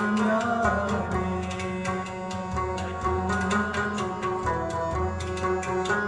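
Live Indian ensemble music: tabla strokes over a plucked string instrument and sustained melodic tones.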